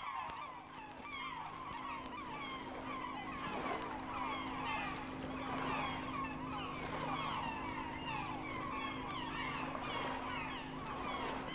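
A flock of birds calling continuously, many short calls overlapping, over a steady low hum.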